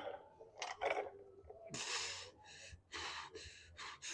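A person breathing hard: a run of about six short, sharp breaths in and out, like a lifter catching breath around a heavy clean-and-jerk set.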